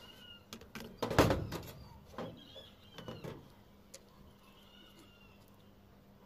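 Handling noise on a corrugated metal roof: a scraping bump about a second in, then two lighter bumps, as the worker moves and presses a sealant patch by hand. Birds chirp faintly in the background.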